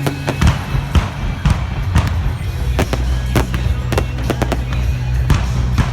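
Fireworks display: irregular bangs and crackling bursts, about one or two a second. Loud music with a deep bass line plays through loudspeakers underneath.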